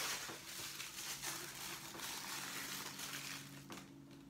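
Rustling and light scraping from packaging and the statue being handled during unboxing, with a few small clicks. A faint steady hum runs underneath.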